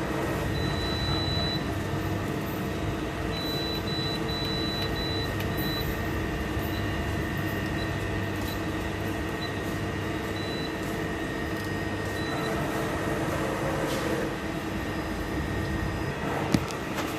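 CNC machine drilling: a steady mechanical hum and whine holding several tones, with one sharp click near the end.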